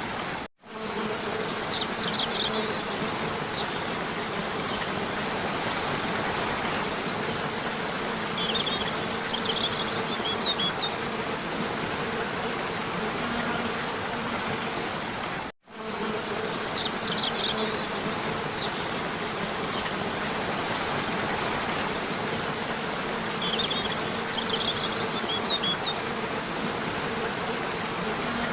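Steady buzzing hum of insects, with a few short high chirps in two clusters. The sound drops out for a moment about half a second in and again near the middle, and the same stretch repeats after the second dropout, as in a looped recording.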